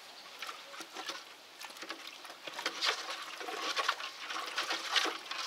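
A pipe stirring bitumen lumps in petrol in a bucket: irregular scraping and clicking with liquid sloshing. The bitumen at the bottom is not yet dissolved.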